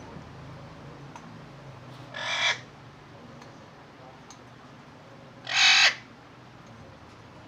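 Parrot squawking: two short, harsh screeches about three seconds apart, the second louder.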